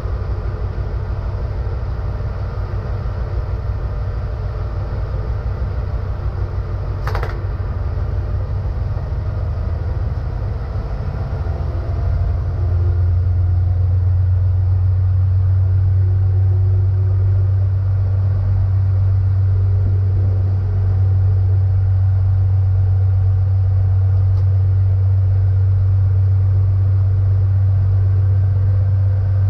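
Silver Fern diesel railcar running, heard from the driver's cab: a steady low engine drone with track rumble, which grows louder about twelve seconds in. A single sharp click comes about seven seconds in.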